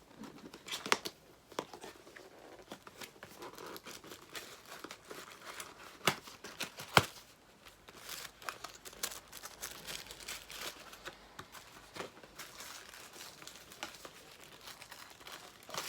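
Packaging of a makeup brush set being opened by hand: ongoing crinkling and tearing of wrapping, with scattered sharp clicks and snaps, the loudest about a second, six and seven seconds in.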